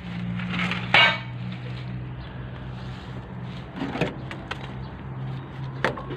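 Excavator engine running steadily, with a loud sharp crack about a second in and smaller knocks around four and six seconds.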